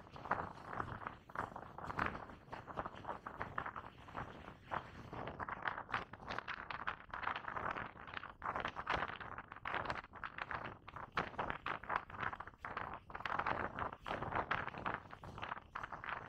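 Footsteps of a person walking, a run of irregular short steps.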